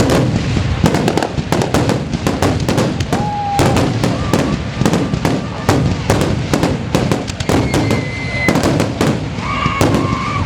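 Aerial fireworks bursting in a rapid, dense barrage of bangs and crackles, many shells a second. A few brief high tones sound over the bangs.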